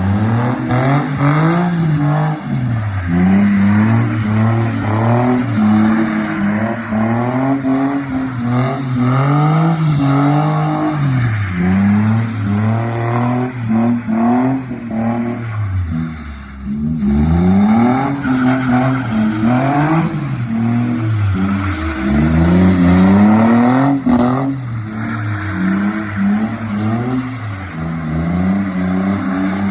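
Car engine revving hard under drifting, its pitch climbing and dropping again and again as the throttle is worked, with a brief lull about halfway.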